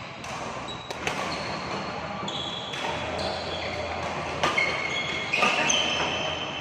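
Badminton rally on an indoor court: sharp racket hits on a shuttlecock, a few times, among short high squeaks of shoes on the court floor.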